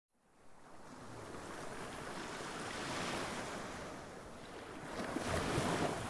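Sea waves washing onto a beach: a steady wash of surf that fades in at the start and swells twice, the second surge, near the end, the louder.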